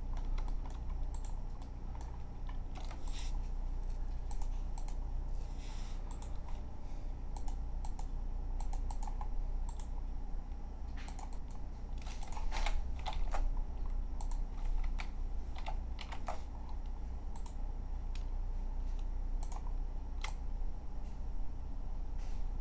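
Computer keyboard typing: irregular, scattered keystrokes, some in quick clusters, over a steady low hum.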